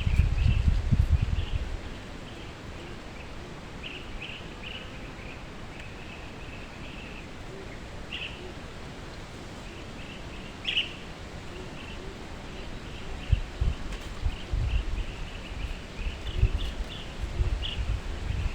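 Small birds chirping in short, high, repeated notes, with wind rumbling on the microphone in the first second or so and again in gusts from about two-thirds of the way through.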